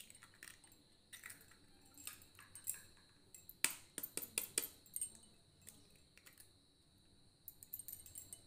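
Steel spoon tapping to crack eggs over a glass bowl, clinking against the shell and the bowl: scattered sharp clicks, with a quick run of several taps about four seconds in and another near the end. A faint steady high-pitched whine sits underneath.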